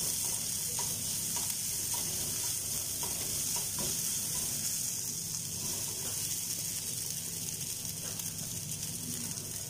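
Onion and spice masala sizzling steadily in a nonstick frying pan while a wooden spatula stirs and scrapes it around the pan.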